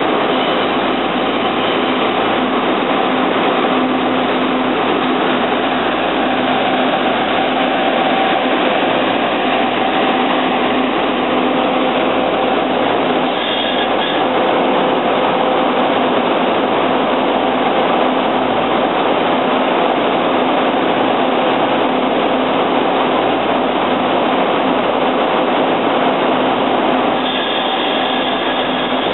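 TRA DR1000 diesel railcar's underfloor diesel engine running steadily close by, an even drone with a few constant tones in it.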